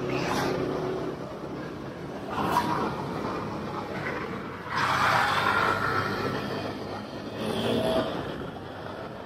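Motorcycle riding through town traffic: steady engine and road noise, with three louder swells as vehicles pass or engines rev, about two and a half, five and eight seconds in.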